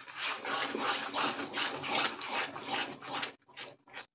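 A wooden spatula stirs thick, freshly ground saag in a steel kadai over hot masala, making wet scraping strokes about three times a second. The stirring stops a little after three seconds in, leaving a few short, faint sounds from the pan.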